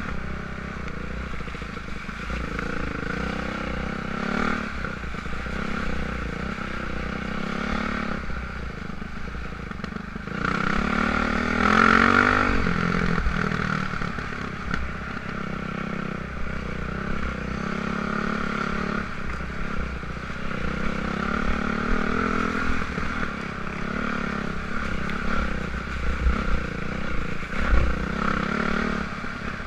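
Dirt bike engine running at low revs, with a rise and fall in revs about eleven to thirteen seconds in.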